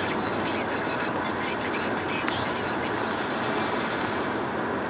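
Steady road noise inside a van's cab at motorway speed: the engine, tyres and wind blend into one even rush.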